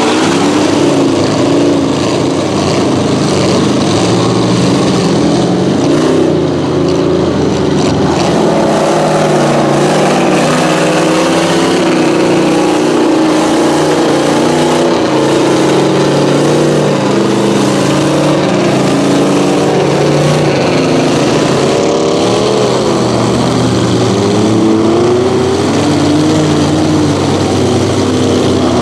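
Engines of lifted mega mud trucks running and revving in a mud bog, the pitch rising and falling again and again.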